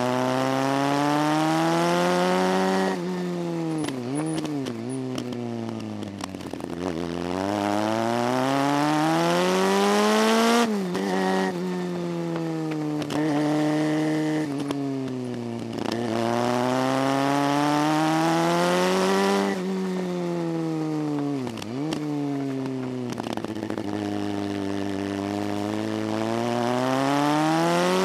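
Motorcycle engine pulling hard up a series of hairpin bends. Its pitch rises steadily under throttle, then drops sharply as the throttle closes, four times over, with short low dips between the climbs.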